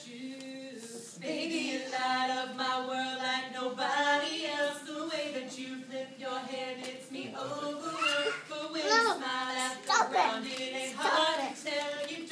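Voices singing, holding long notes that glide from one pitch to the next.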